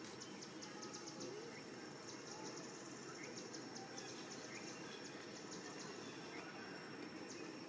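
Outdoor ambience: a steady background hiss with rapid high-pitched insect ticking in repeated clusters and a few faint, short bird chirps.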